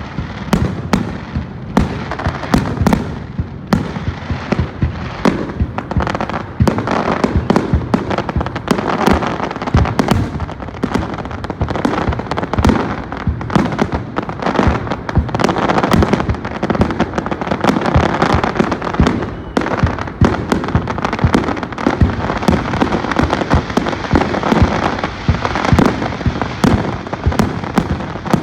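Fireworks display going off in rapid succession: a dense run of sharp bangs, several a second, over continuous crackling.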